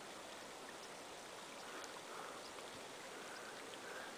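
Faint, steady water noise from shallow lake water, with a few tiny ticks.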